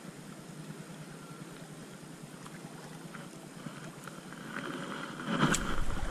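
Soft lapping of shallow water with light wind. A little after four seconds in, wind rumble and handling knocks on the body-worn camera's microphone grow louder, with one sharp knock, as the spinning rod is moved out over the water.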